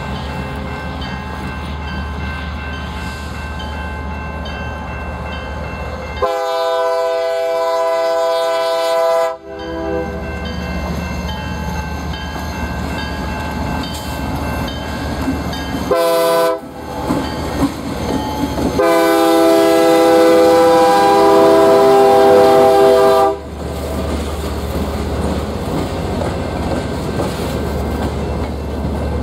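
EMD SD40-2 diesel locomotive leading a freight train past, its engine rumbling steadily, with its chime air horn sounding a long blast about six seconds in, a short toot around sixteen seconds and a second long blast from about nineteen to twenty-three seconds. The freight cars then roll past.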